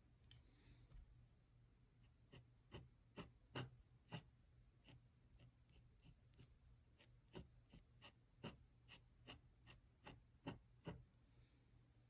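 Dip pen nib scratching on paper in short, separate strokes, about two a second, faint and uneven, with a few louder strokes about a third of the way in and near the end.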